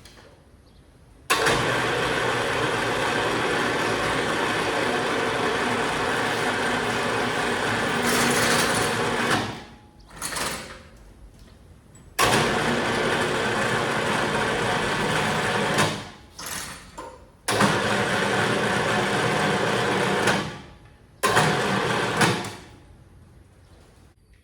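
A motor-driven machine run in four bursts, each switching on abruptly and winding down when it stops, the first lasting about eight seconds.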